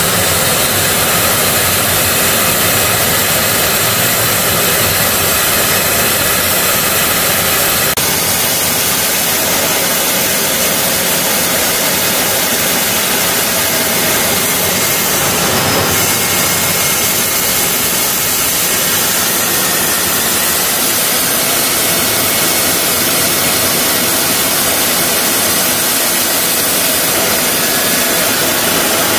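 Steady jet aircraft noise in flight: a dense, even rush of engine and airflow as heard aboard the chase aircraft, with a faint high whistle joining about halfway through.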